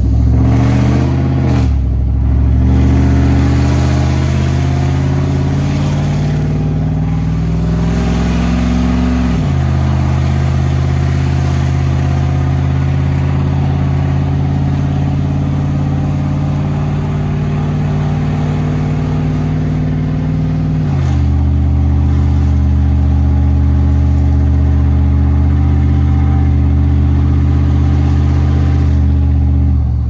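Motor vehicle engine running under way, its note climbing slowly and then changing pitch sharply twice, about a third and about two-thirds of the way through, much like gear changes.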